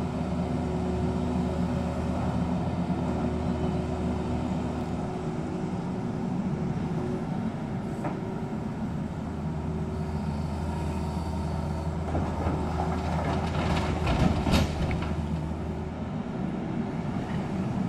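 Crawler excavator's diesel engine running steadily as it works its boom and bucket, loading rock into a tipper truck. About three-quarters of the way through comes a short rattle of rock and metal knocks.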